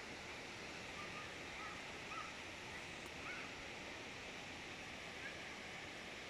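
Steady outdoor background noise, an even hiss, with a few faint, short bird chirps scattered through it.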